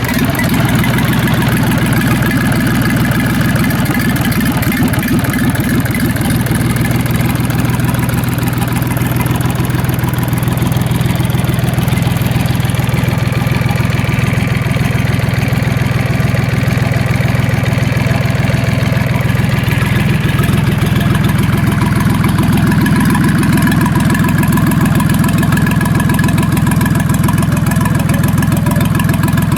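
Siyang 380J-3 three-cylinder, water-cooled four-stroke marine diesel running steadily on a test run, just after starting. Its note changes a little about twenty seconds in.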